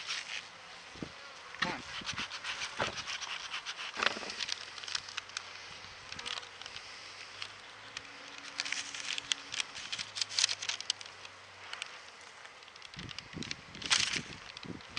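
Honey bees buzzing over the open top bars of a hive, with scattered clicks and rustles as hands work over the wooden frames and lay a paper-backed protein patty down. A louder rustle comes near the end.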